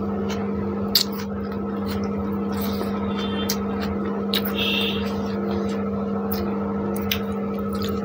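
Eating sounds of people chewing rice and chicken by hand: short wet clicks and smacks, a sharp click about a second in. A steady droning hum underlies it all.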